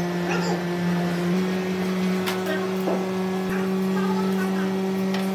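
Steady electric-motor hum of workshop machinery, with a few sharp metallic clicks and faint voices in the background.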